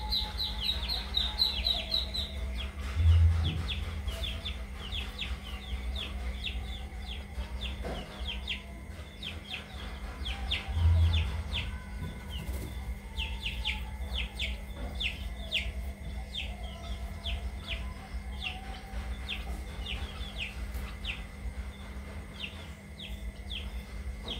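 Birds chirping over and over in short, high, downward-sliding chirps, over a steady low hum, with two brief low thuds about three and eleven seconds in.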